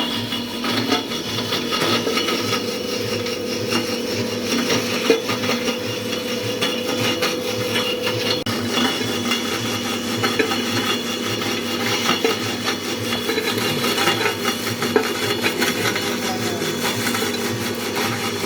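Clove-stem grinding machine running under load: a steady machine hum with dense rattling and clicking as the stems are broken up inside the mill.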